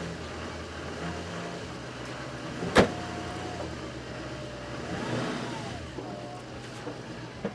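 Truck engine running steadily as the truck is driven, with one sharp knock about three seconds in.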